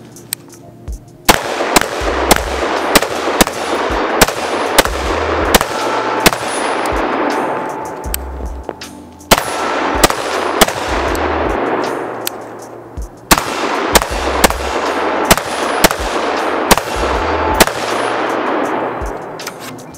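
Short-barrelled AR-15 pistol with a muzzle brake firing rapid single shots, about two a second, in three strings starting about a second in. Background music with a steady low beat plays underneath.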